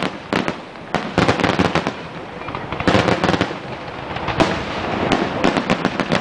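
Fireworks display: dense, rapid crackling and popping of bursting shells, with louder flurries of bangs about one, three and four and a half seconds in.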